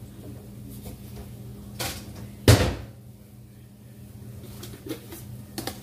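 A kitchen cabinet door shutting with one loud thud about two and a half seconds in, with a few lighter clicks and knocks around it over a steady low hum.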